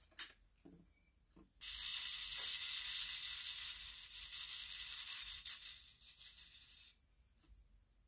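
Diamond painting drills rattling and sliding across a ridged plastic sorting tray as it is shaken, a dense fine rattle lasting about five seconds that stops near the end, after a few light clicks at the start.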